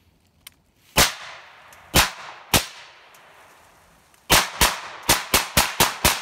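Suppressed AR-15 rifle firing. Three single shots come about a second apart, then a rapid string of about seven shots, each a sharp crack with a short trailing echo.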